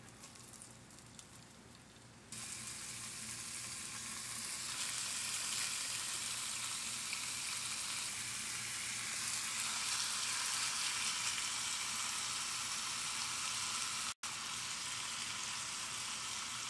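Marinated carne asada beef strips hitting a hot nonstick pan about two seconds in, then a steady loud frying sizzle as the meat sears, cutting out for an instant near the end.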